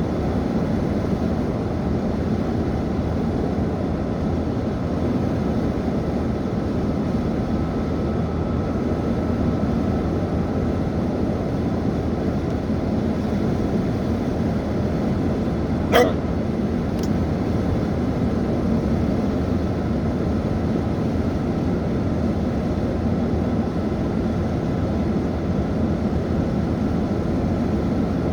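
A person hiccups once, a short sharp hic about halfway through, over steady low background noise.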